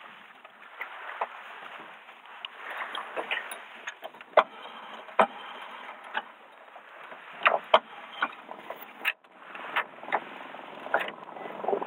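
Knocks, clicks and clatter of gear being handled aboard a small open boat, over a steady background hiss.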